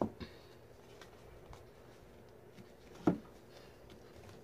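Quiet handling noise: a short knock at the start and a louder thump about three seconds in, with faint small ticks between.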